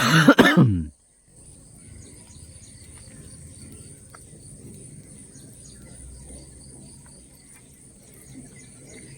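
A loud, short burst of a person's voice falling in pitch, then, after a brief gap, steady outdoor ambience with insects chirping in a constant high tone over a low background rumble.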